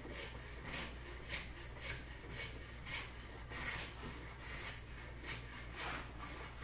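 Hand plane taking quick, light shaving cuts along a wooden workpiece, a short hiss with each stroke, a little under two strokes a second.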